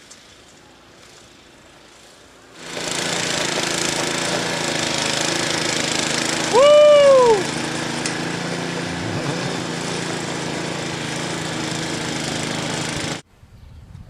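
Snowblower engine running steadily while it throws snow, starting abruptly a couple of seconds in and cutting off abruptly near the end. About halfway through, a brief loud call rises and falls in pitch over the engine noise.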